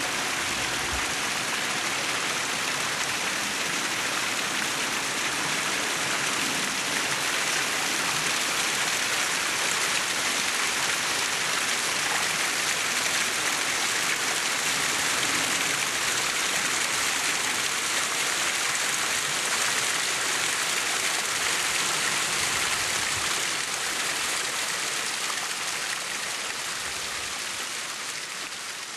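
Small stream of water splashing down a rocky cascade, a steady rush that fades away near the end.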